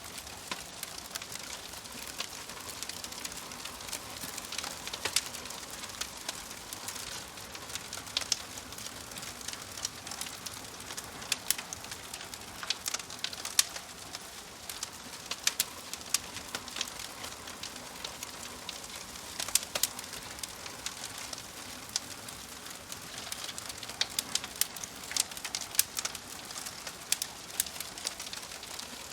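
Wood fire burning in a fireplace, with a steady hiss and frequent sharp, irregular crackles and pops of the burning logs.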